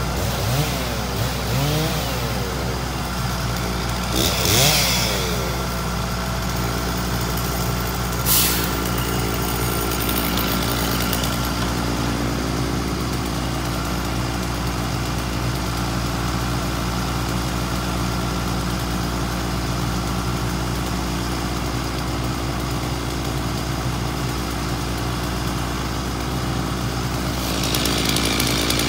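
Engine of a log truck running steadily to power its hydraulic knuckleboom loader. The pitch rises and falls in the first few seconds as the boom is worked, there is a sharp click about eight seconds in, and a rushing hiss swells near the end as the grapple swings up.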